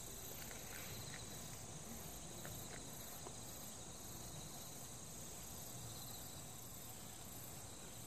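Steady high-pitched insect chorus with a regular pulsing trill above it, over faint outdoor background noise.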